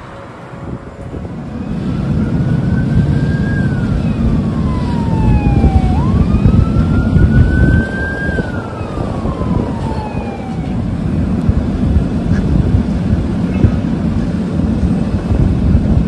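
Emergency vehicle siren wailing, its pitch rising and falling slowly twice, over a heavy, steady low rumble.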